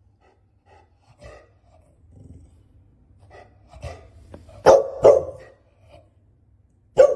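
A pet dog barking: two loud barks in quick succession about two-thirds of the way through, and a third near the end, with a few quieter short sounds before them.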